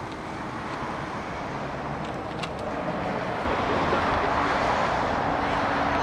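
Road traffic on a busy boulevard: cars driving past, with tyre and engine noise that swells about three and a half seconds in as a vehicle comes close.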